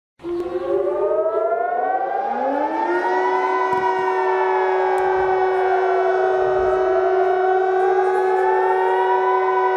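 Air-raid siren wailing, cutting in abruptly. Its tones climb, then one holds a steady pitch while the others slowly fall and rise again.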